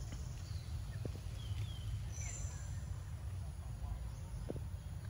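Outdoor ambience in woodland: a steady low rumble with a few faint high chirps, a short high buzz a little over two seconds in, and a couple of faint clicks.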